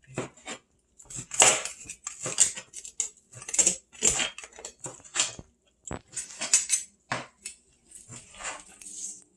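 Repeated, irregular knocks of a knife chopping chicken meat and bone on a cutting board, about one or two strokes a second.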